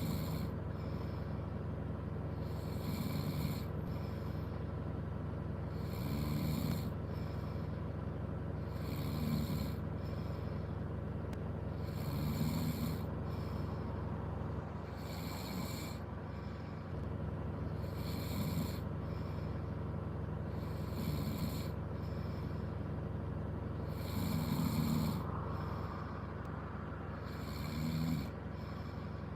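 A person snoring in sleep, one snore about every three seconds, over a steady low hum inside a car.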